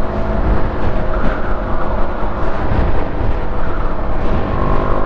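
BMW G310R's 313 cc single-cylinder engine cruising steadily at about 6,000 rpm in sixth gear at 100 km/h, heavily mixed with wind noise on the microphone.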